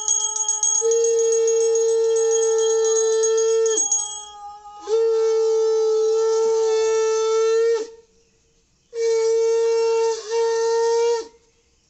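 Conch shell (shankha) blown in three long, steady blasts, each sagging in pitch as the breath runs out. A small hand bell rings rapidly through the first blast and stops about four seconds in.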